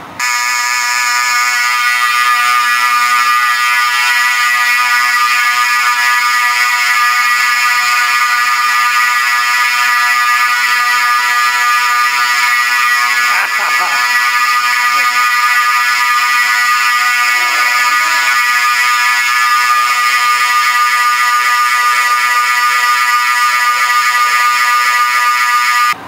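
Building fire alarm sounding very loudly: a continuous, harsh buzzing tone held without a break.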